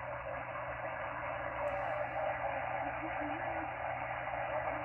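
Steady static hiss from a Xiegu X6100 HF transceiver's speaker while it receives on the ham bands. The hiss is held within the narrow voice passband of the receive filter.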